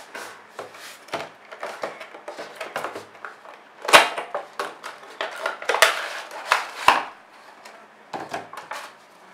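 Cardboard product boxes and a clear plastic packaging tray being handled and opened: a run of rustles and sharp clicks and knocks, the loudest about four seconds in.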